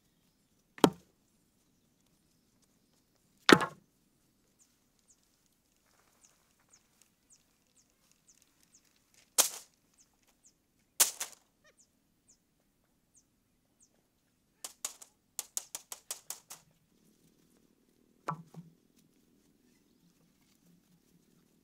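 Wooden and bamboo poles dropped onto a pile on the ground, each landing with a sharp knock. Four separate knocks come a few seconds apart, then a quick rattle of about ten clacks as the poles are shifted against one another, and one more knock near the end.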